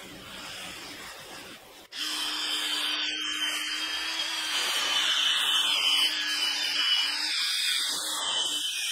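Cordless drill with a round brush attachment scrubbing a cloth car seat. The motor starts suddenly about two seconds in and runs steadily with a hum and a scrubbing hiss.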